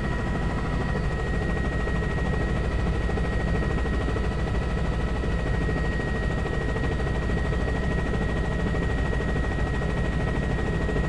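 Helicopter in flight: steady rotor and engine noise with fast low pulsing and a constant high whine.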